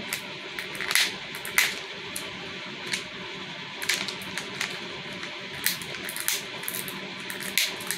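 Plastic wrap on a Mini Brands capsule ball crinkling and crackling as fingers pick and peel it off, in irregular sharp crackles, the loudest about a second and a half in and near the end. A faint steady hum lies underneath.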